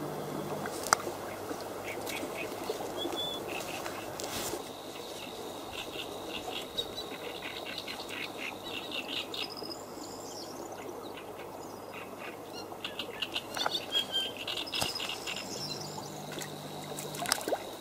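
Outdoor pond-side ambience: small birds chirping and calling in short, repeated phrases over a steady background hiss, with a few faint clicks.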